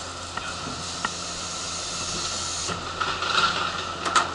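Steady hiss of compressed air released by a JR Central 383-series limited express train standing at the platform, cutting off a little over halfway through. Near the end come light metallic clatters and one sharp knock as a portable boarding ramp is set at the train door.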